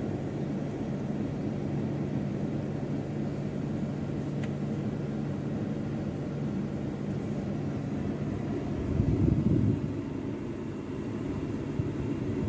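A vehicle engine running steadily, a low hum, with a louder low rumble for about a second near the end.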